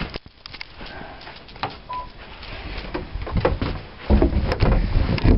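A sticking room door being forced shut: scattered knocks and clicks, then a loud run of heavy thuds and rattling in the last second or so as it is pushed closed. The door is hard to close.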